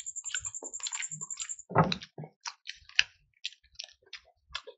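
Close-miked eating by hand: chewing, lip smacks and wet squishes of fingers working fish and rice, with scattered small clicks. A rapid high-pitched ticking runs under the first second and a half, then stops.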